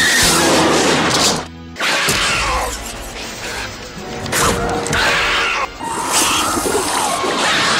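Graboid monster sound effects mixed with dramatic film music, with crashing, shattering hits. The sound is cut into several short pieces, with a brief drop in level about one and a half seconds in and another near six seconds.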